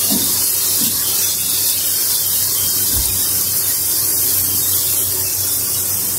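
Sliced onions frying in hot oil in a wok, a steady sizzling hiss with a faint low hum underneath; a low thump about three seconds in.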